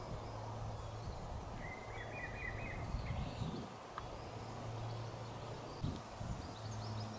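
Rural outdoor ambience: a low steady hum under a soft background hiss, with a bird giving a short run of chirps about two seconds in.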